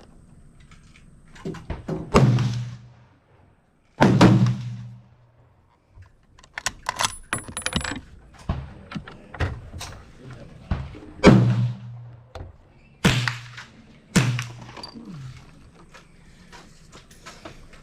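Gunshots fired one at a time: five loud reports with ringing tails, spaced from about a second to several seconds apart, with fainter pops and clicks in between.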